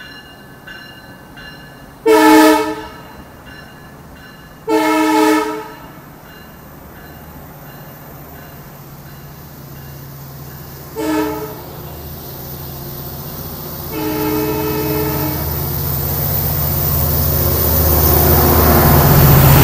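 Long Island Rail Road diesel train sounding its horn in the grade-crossing pattern (long, long, short, long) as it rolls along the platform. Its bi-level coaches rumble past, and the train gets steadily louder as the diesel locomotive draws near at the end. A faint bell rings about twice a second at the start.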